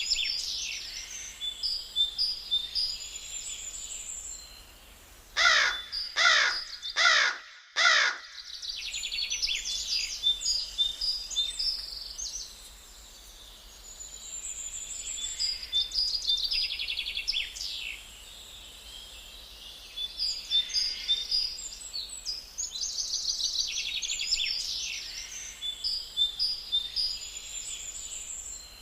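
Songbirds chirping in repeated high phrases. About five seconds in, a crow caws four times in quick succession, each call sliding downward.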